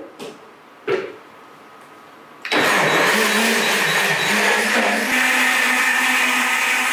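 A few short knocks as the blender jar and lid are handled, then a high-speed countertop blender switches on about two and a half seconds in and runs steadily at full speed, puréeing corn kernels in water into corn milk. Its pitch steps up slightly about halfway through.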